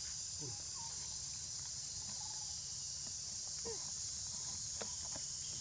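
Steady insect chorus: a continuous, even high-pitched buzz of crickets or similar insects.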